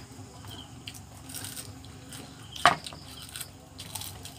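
Crispy fried crab shells being broken apart by hand and chewed: scattered small crackles and crunches, with one louder sharp crack about two and a half seconds in.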